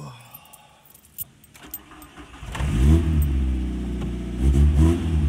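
A Mk1 Volkswagen's engine being started: a key click, then the engine catches, revs up and settles to idle, is blipped once more near the end and idles on. A few keys jangle too.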